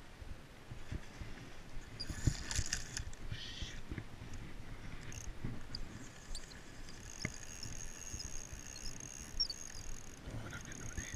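Rod, reel and camera handling noise while playing a hooked fish on a spinning rod: scattered knocks and rustling, with a thin, high, steady whine from about the middle to near the end.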